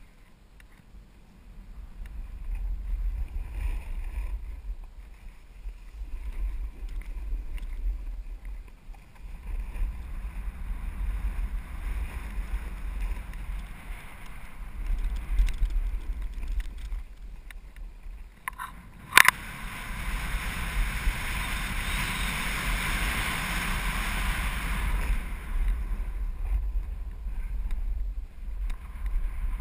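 Wind buffeting an action camera's microphone while riding a snowboard downhill, with the board's edges scraping over the snow. About two-thirds of the way through comes a sharp knock, then a loud hiss of the board scraping for about six seconds.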